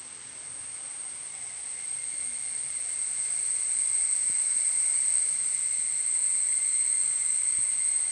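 A steady, shrill insect drone that grows louder over the first few seconds and then holds.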